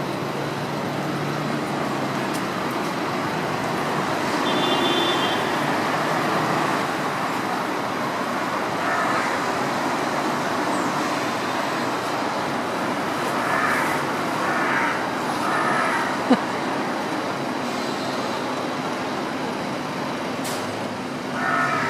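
Steady city road traffic, with a hooded crow cawing a few times over it: once about nine seconds in, three caws in a row about two-thirds of the way through, and again near the end. A single sharp knock is heard just after the three caws.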